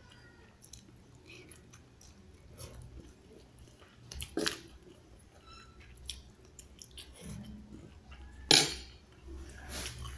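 A person chewing and eating rice with a spoon: quiet chewing and mouth sounds with a few short clicks, the sharpest about four and a half seconds in and the loudest about eight and a half seconds in.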